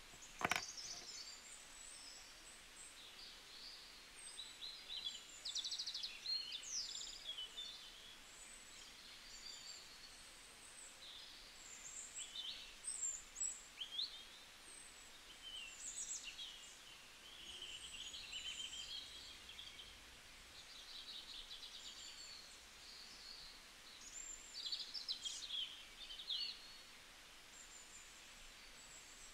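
Small birds chirping and trilling over a quiet background hiss, with a single sharp click about half a second in.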